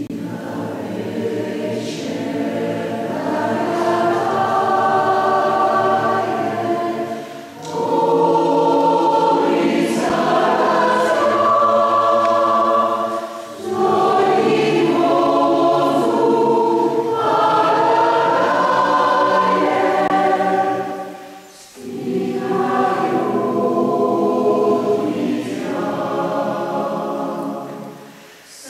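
A choir singing a slow piece in sustained chords, in four phrases with short breaks for breath between them.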